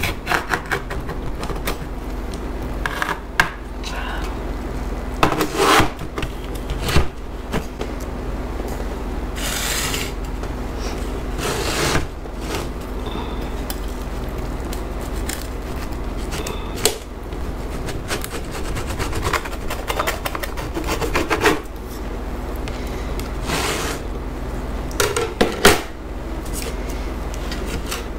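Steel bench scraper pressed and rocked through a baked gluten-free pizza crust: crisp crust crackling and crunching, with the metal edge scraping against the slate board in several louder strokes.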